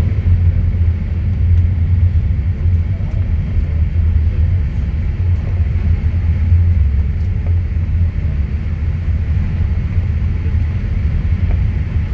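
Cabin noise of a Boeing 787-8 heard from a window seat over the wing while the aircraft taxis on the ground: a steady low rumble from its GEnx engines at low power and the airframe rolling.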